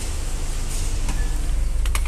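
Ford New Fiesta's engine idling with the air conditioning running: a steady low hum, with a few faint light knocks.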